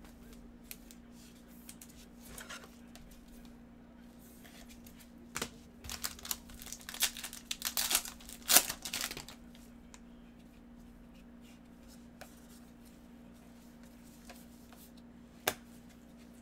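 Plastic wrapper of a trading-card pack being torn open and crinkled by hand, in a cluster of crackly bursts in the middle. A single sharp click comes near the end, over a low steady hum.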